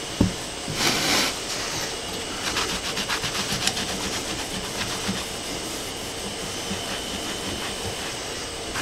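A cloth rag wet with isopropyl alcohol scrubbed quickly back and forth over a bare metal 3D-printer bed plate to lift old glue residue, a rhythmic rubbing of several strokes a second. A knock and a short rush of noise near the start as the rag is wetted from the bottle.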